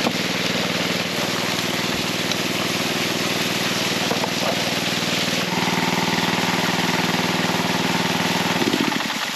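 Small petrol water pump engine running steadily, pumping dam water through the hose to a sluice box; it gets louder about five and a half seconds in and is shut off near the end, stopping abruptly.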